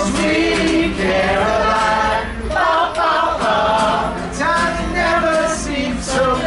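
Live singing of a song, several voices together, unaccompanied or nearly so.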